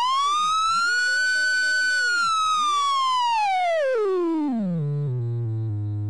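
Synthesized demonstration tone with a buzzy, overtone-rich sound, sweeping in pitch to show changes in frequency. It glides up to its highest pitch about two seconds in, then slides smoothly back down to a low hum by about five seconds in, and holds there a little quieter.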